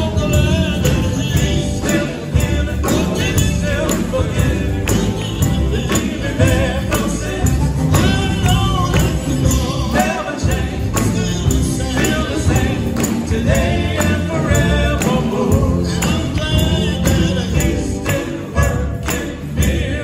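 Live gospel quartet performing: a sung vocal line over electric guitar, electric bass and drums with a steady beat and a jingling percussion sound.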